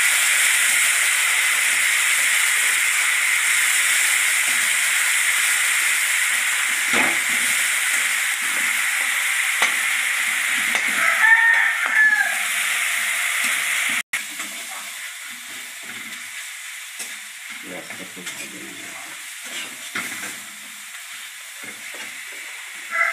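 Crushed onion frying in hot mustard oil in a steel kadai: a steady sizzle, with a spatula stirring and scraping against the pan. The sizzle becomes much quieter about fourteen seconds in. A short pitched call sounds about eleven seconds in.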